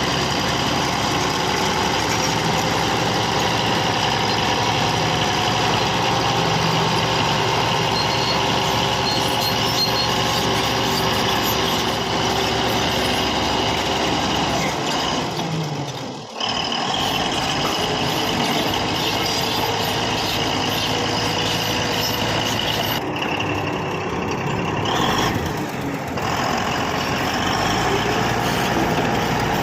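Komatsu D155A bulldozer's diesel engine running steadily under load while the machine pushes soil with its blade. The sound dips briefly about halfway through and is muffled for a moment later on.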